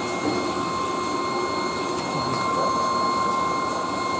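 Steady rushing of water pouring and circulating in a shallow seafood holding tank, with a constant high-pitched whine over it.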